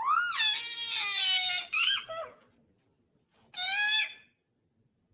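A high-pitched voice crying in long, shrill wails that swoop up and then fall: one long cry at the start, a short one about two seconds in, a gap, then another brief cry near the end.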